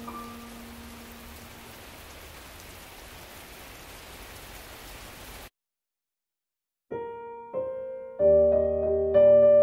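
Steady hiss of rain with a piano chord fading out. About five and a half seconds in, the sound cuts to silence, and a second and a half later solo piano music starts, slow notes building up to the loudest part near the end.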